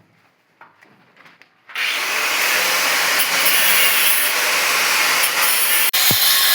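A power tool starts up suddenly about two seconds in and runs steadily with a loud, harsh, grinding-rasping noise, as in cutting or sanding building material, with a very brief cut-out near the end.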